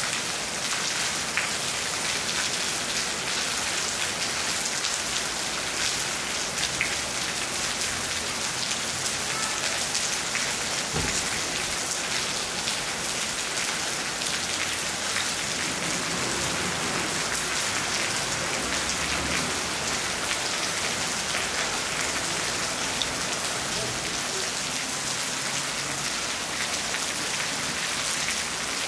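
Steady rain falling on rooftops and a wet street, an even hiss with many fine drop ticks throughout.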